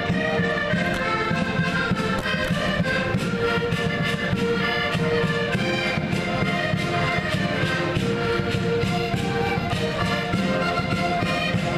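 A group of concertinas (diatonic button accordions) playing a tune together with a steady beat.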